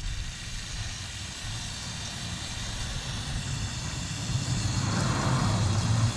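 Aerosol cleaner spraying in one long, continuous hiss onto an oily back-up light switch connector to wash off the gunk.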